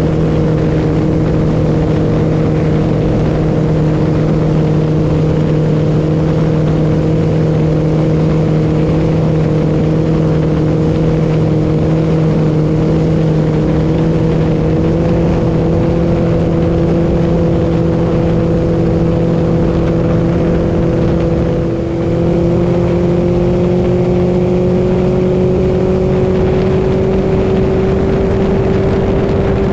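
Mercury Pro XS 115 outboard motor driving a boat under way, heard close up: a steady engine note over a constant rushing hiss. The pitch slowly climbs through the second half as the motor speeds up, with a brief dip in loudness about two-thirds of the way through before it rises again.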